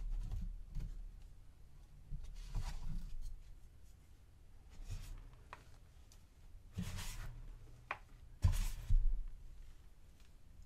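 Hands pressing and scooping powdered gym chalk in a plastic tub, giving a series of soft, separate crunches, the loudest two close together near the end.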